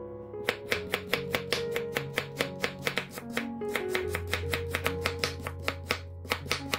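Kitchen knife slicing a peeled Korean radish thinly on a wooden cutting board. Each cut ends in a crisp knock on the board, in a quick, even rhythm of about five cuts a second, over soft background music.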